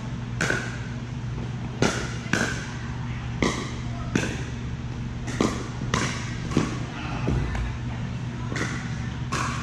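Pickleball rally: paddles striking the hollow plastic ball with sharp pops, mixed with the ball bouncing on the court, about ten hits at uneven intervals. A steady low hum runs underneath.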